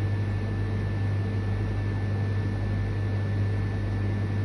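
Steady low mechanical hum with a faint, thin high whine above it, unchanging throughout.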